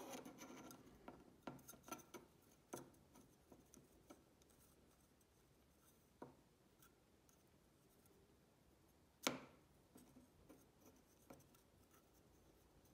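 Faint handling sounds, small clicks and rustles, as an elastic shock cord is knotted around a screw eye in a plastic model-rocket nose cone, with one sharper click about nine seconds in.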